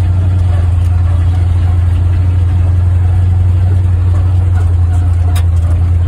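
A 1961 Ford F-250's engine running steadily at low revs, heard from inside the cab as the truck rolls slowly along, a loud even low drone with no revving.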